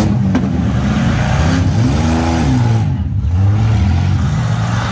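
Demolition derby cars' engines revving in the arena, their pitch rising and falling, with one clear rev up and back down about two seconds in.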